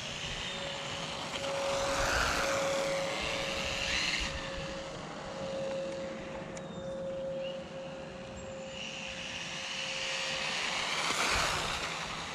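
Electric RC drift truck's motor whining as it drives around, swelling twice as it comes closer, about two seconds in and again near the end.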